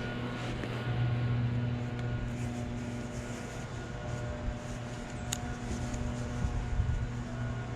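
A steady engine hum, with a sharp click about five seconds in.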